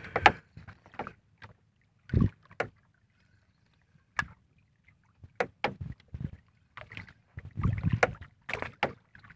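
Irregular knocks and slaps around a small wooden outrigger boat as the hull rocks and gear is handled, with quiet gaps between them. The loudest knocks come about two seconds in and again near the end.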